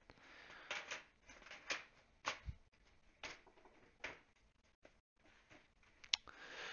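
Scattered light clicks and taps of a Corsair PC case's top panel being fitted by hand, about one a second, with the sharpest click about six seconds in.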